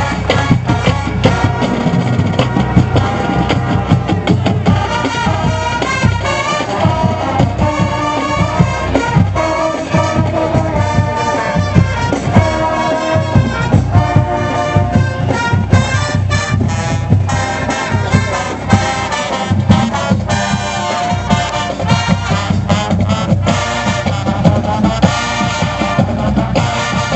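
Marching band playing its pregame show: brass over a steady drum beat.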